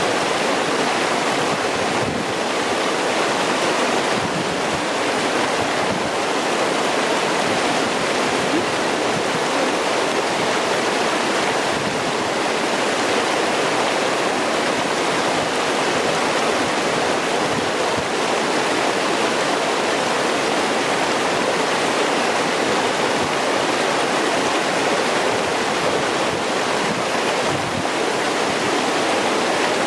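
A clear mountain stream rushing and splashing over rocks, making a steady, unbroken sound.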